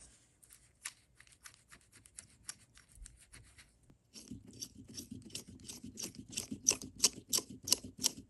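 Pin-vise hand drill turned by hand, its small twist bit scraping through a 3D-printed plastic steering part. It makes a fast run of short scraping clicks, about five a second, that grow louder and fuller from about four seconds in as the bit bites into the part.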